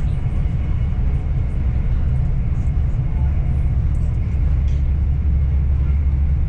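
LNER Azuma high-speed train running at speed, heard from inside a passenger coach: a steady, loud low rumble of wheels on the track and cabin noise, deepening a little about halfway through.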